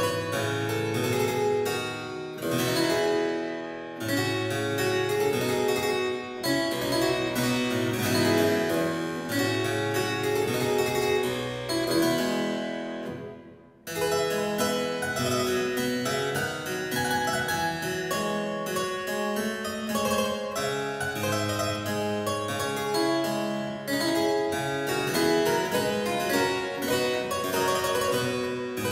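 Solo harpsichord music, a stream of plucked notes. About fourteen seconds in the sound dies away briefly, then the playing starts again.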